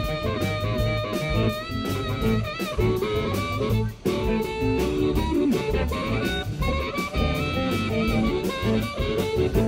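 Live electric blues band in an instrumental break: an amplified harmonica, cupped to a vocal microphone, plays held and bent notes over electric guitars, bass and drums.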